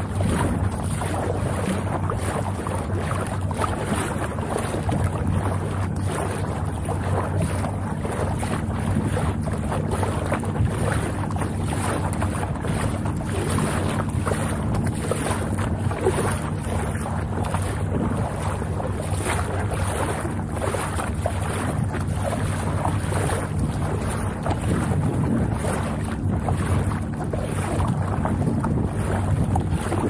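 Wind buffeting the microphone over water sloshing and splashing along an inflatable packraft's hull as it is paddled.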